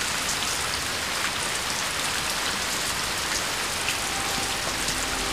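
Heavy rain pouring down steadily: a dense, even hiss flecked with many small drop ticks.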